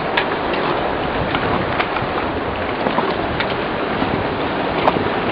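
Steady rush of wind and sea water around a sailboat, with a few faint clicks.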